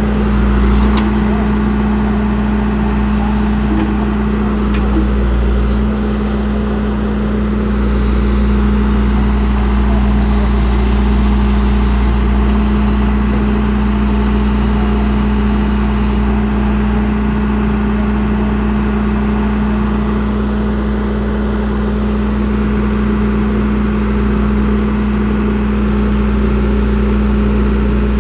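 A motor vehicle's engine running steadily at an even speed: a loud, constant drone with a low hum.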